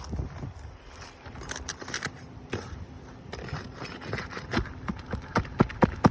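A roofer working on a hail-damaged asphalt shingle during a repair test: scraping and crackling, then a quick run of sharp taps or clicks in the second half, the loudest just before the end.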